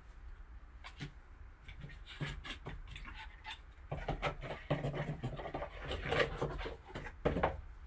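A cardboard trading-card box being handled with gloved hands: the lid sliding and the box scraping and knocking on the table, with light rustling. It is busiest and loudest in the second half.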